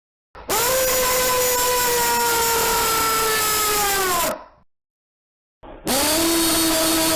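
A man's two long held screams, harsh and distorted. The first lasts about four seconds and drops in pitch as it cuts off. After a moment of silence a second, lower scream starts near the end.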